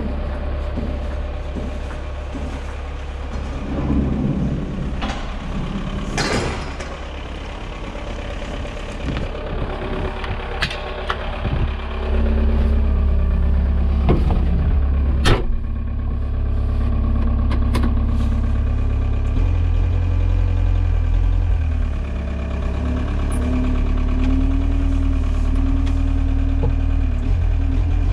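Linde H16 forklift's engine running, growing louder about twelve seconds in and again near twenty seconds, with a steady hum over it in the later part. Three sharp clanks come in the first half.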